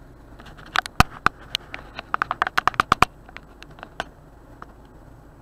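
A quick, irregular run of sharp clicks and taps inside a car cabin, bunched in the first few seconds, then a few scattered single clicks.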